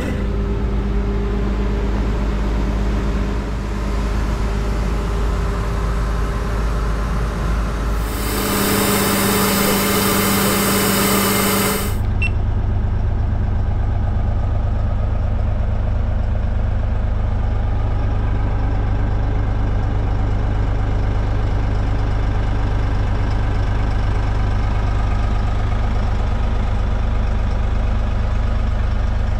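Sherp amphibious ATV's Kubota diesel engine idling steadily. A loud hiss sounds over it for a few seconds about a third of the way through, after which the engine's drone sits a little higher in pitch.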